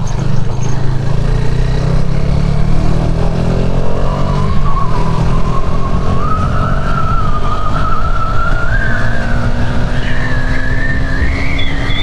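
Motorcycle accelerating hard from a low speed to over 100 km/h, its engine note climbing steadily in pitch. Heavy wind noise rushes over the microphone, louder than the engine.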